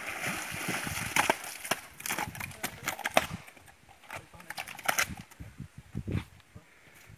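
Water splashing as a fish is hauled out of the river, then a string of irregular sharp slaps and knocks as the landed fish thrash and are handled on bare rock.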